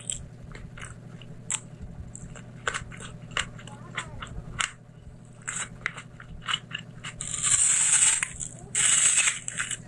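Close-miked eating: crisp crunching and chewing of food, many short crunches, with two louder, noisier stretches of crunching about seven and nine seconds in.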